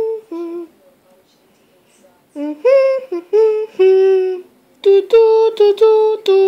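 A high voice humming a tune in long held notes: a short phrase, a pause of about a second and a half, then two longer phrases.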